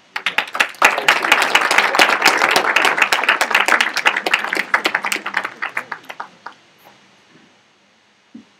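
Audience applauding in a room, starting at once, at its fullest for a few seconds, then thinning out and stopping after about six and a half seconds.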